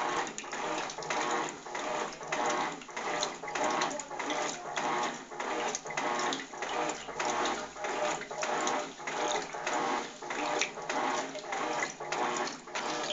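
Electrolux TOP6F top-loading washing machine agitating a load: water and clothes slosh back and forth in a steady rhythm over a faint motor hum.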